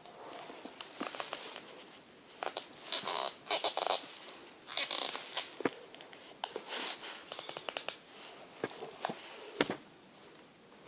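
A toy being handled: a string of sharp clicks and short scraping, rustling bursts, the loudest around three to five seconds in.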